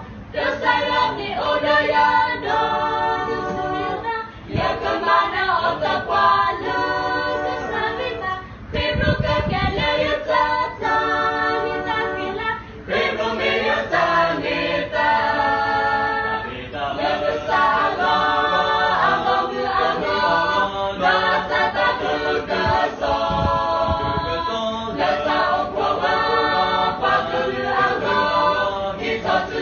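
A small group of young women and a man singing a cappella, unaccompanied voices in phrases with short breaths between them every few seconds.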